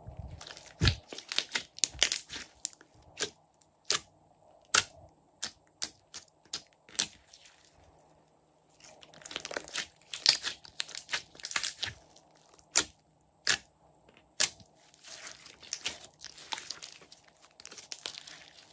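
Hands squeezing, folding and stretching a lump of glossy slime: wet crackling and sharp pops as trapped air bursts. Stretches of rapid crackling alternate with single louder pops.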